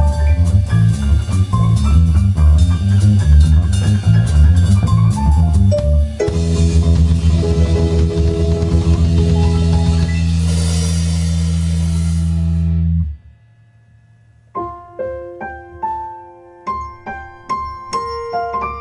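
Instrumental rock band with piano playing a fast, driving passage, then holding a loud chord with cymbal wash that cuts off sharply about thirteen seconds in. After a brief pause, a solo piano comes in with single spaced notes.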